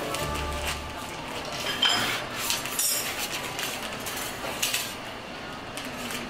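A few separate sharp clinks and knocks of hard utensils against a work surface during hand candy making.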